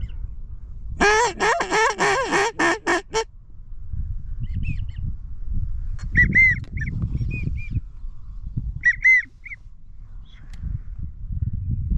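Wigeon whistles: a loud rapid trill of calls for about two seconds, then short rising-and-falling whistles in small groups. A low wind rumble sits underneath.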